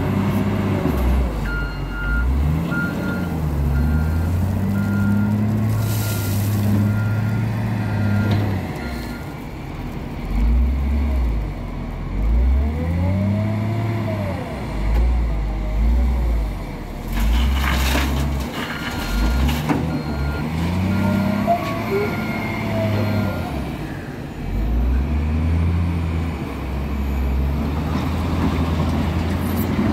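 Caterpillar 966H wheel loader's diesel engine working, revving up and settling back again and again as it digs and loads. A reversing alarm beeps steadily in two stretches, and two short hisses cut through.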